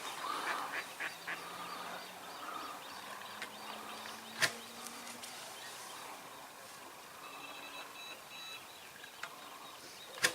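Lakeside outdoor ambience with waterfowl calling, mostly early on, and a few thin high chirps later. There are two sharp clicks, one near the middle and one at the very end.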